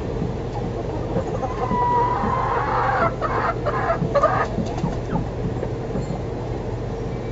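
Chickens calling: one drawn-out call, then a burst of clucking about three seconds in, over a steady low hum.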